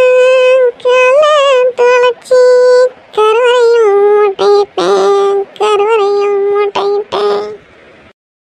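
A woman's solo voice singing a Tamil themmangu folk song without accompaniment, in short phrases of held, wavering notes with brief breaths between them. The tune drops lower partway through, and the singing stops shortly before the end.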